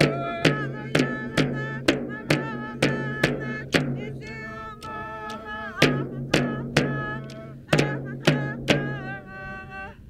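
Inuvialuit drum-dance song: large hand-held frame drums struck together about twice a second under group singing. The drumming pauses for a couple of seconds midway, then picks up again and stops shortly before the end as the singing trails off.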